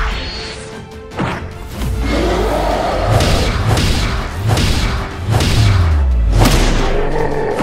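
Soundtrack music with a series of heavy thuds: one sharp hit at the start, another about a second in, then a run of repeated hits over a deep rumble.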